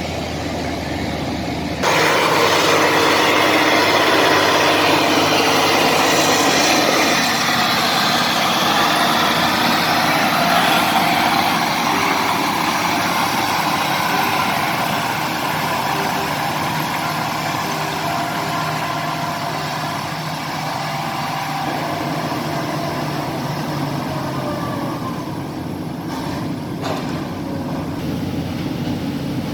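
Heavy diesel engine of logging machinery running steadily, getting suddenly louder about two seconds in.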